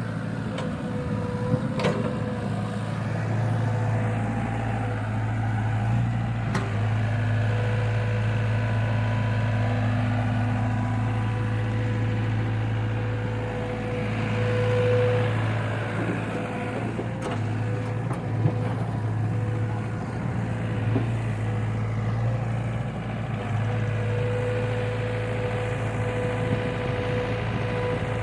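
Diesel engine of a JCB 3DX backhoe loader running steadily at work, with a steady whine above it and a few sharp metallic clanks.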